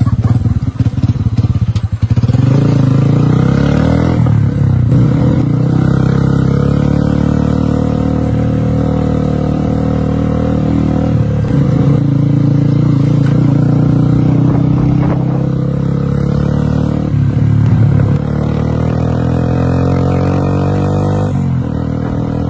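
Motorcycle engine pulling under way through several gear changes: its pitch climbs, drops at each shift and climbs again.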